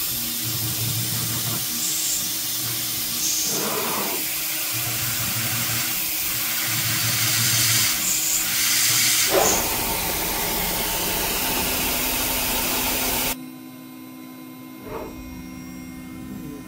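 Spindle of a home-built PrintNC Pro CNC router peck drilling 6061 aluminium plate, the drill retracting and plunging again, under a loud steady hiss of the air nozzle blowing on the cut. Near the end the hiss cuts off suddenly, leaving the spindle's quieter hum.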